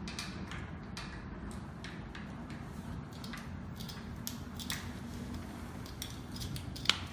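Faint handling noises of a cabinet's top panel being fitted and screwed down, over a steady low hum, with one sharp click near the end.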